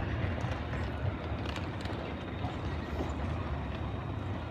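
A tram running away along the rails: a steady low rumble that slowly fades as it recedes, under general street noise.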